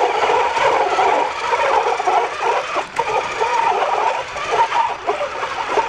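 Traxxas TRX-4 RC crawler driving under power on a tabletop: its Hobbywing sensored brushless motor and drivetrain running hard while the rubber tires scrub and squeal against the table surface, a continuous warbling noise.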